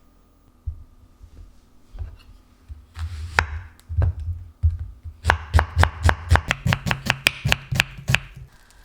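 Knife chopping on a cutting board: a few scattered strokes at first, then a quick, even run of about five or six chops a second lasting about three seconds.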